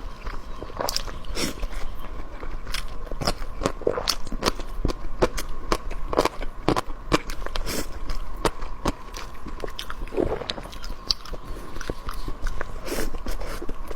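A person chewing and biting food close to the microphone, with many short, irregular wet mouth clicks and smacks.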